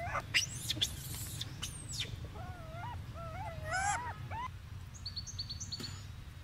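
Young monkeys calling with short wavering coos and squeals, several in a row around the middle. A few sharp clicks come in the first two seconds, and a quick run of high bird chirps comes about five seconds in.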